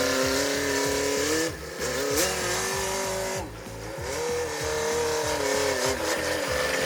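Tractor engine running. Its pitch sags and recovers twice, about a second and a half in and again about three and a half seconds in, as the engine speed dips and picks back up.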